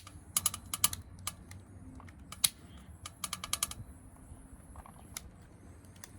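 A lighter being clicked over and over to light fire starter, sharp clicks in quick runs of four or five with single clicks between.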